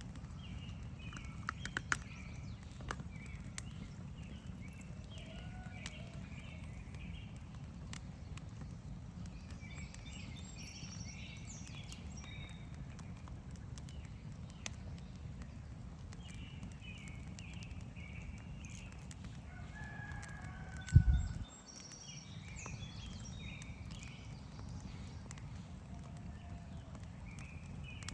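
Campfire crackling with scattered sharp pops over the steady low rush of a stream, while birds call repeatedly in short high notes. About two-thirds of the way through there is one brief, loud, low thump.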